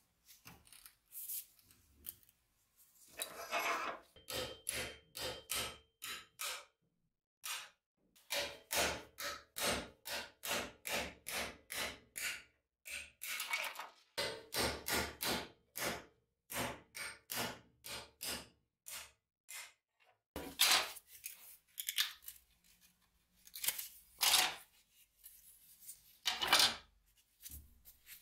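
Hammer tapping a steel pin punch, driving the pins out of an axe's handle scales held in a vise, at about two strikes a second. A few louder separate knocks follow near the end.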